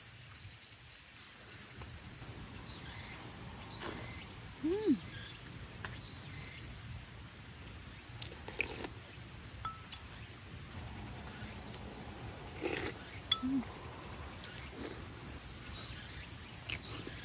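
Eating sounds: chewing and scattered light clicks of chopsticks and a spoon on bowls, with a couple of short rising-and-falling hums. Insects chirr faintly and on and off.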